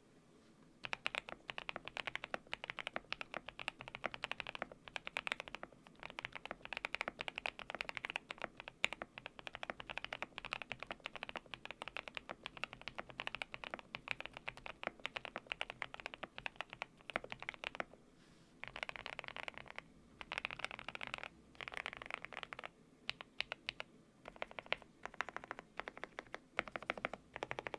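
Typing on a GMK87 mechanical keyboard with lubed Gateron Oil King linear switches, Cherry-profile keycaps and a foam- and tape-modded case. Fast, continuous keystrokes start about a second in, then break into short bursts with brief pauses over the second half.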